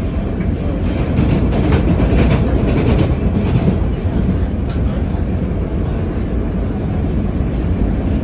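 Subway car in motion, heard from inside: a steady, loud rumble and rattle of the train running along the track, with a few sharp clacks.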